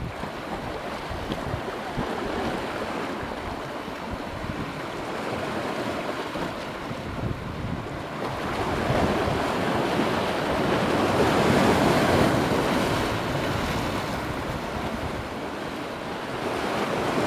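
Wind blowing across the microphone with choppy water lapping, a steady rushing noise that swells about nine seconds in and eases off near the end.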